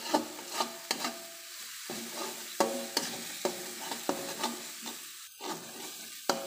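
Metal spatula scraping and clacking against a metal wok while chilli spice paste sizzles in oil, being sautéed until fragrant. The strikes come irregularly, several a second, some leaving a short metallic ring, with a brief pause in the stirring a little after five seconds.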